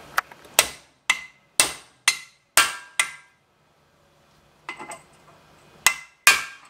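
Hammer blows on metal, driving a Ford Festiva front wheel hub into the spindle knuckle's bearing, each strike ringing briefly. About two blows a second for the first three seconds, then a pause with a light clatter, then three more near the end.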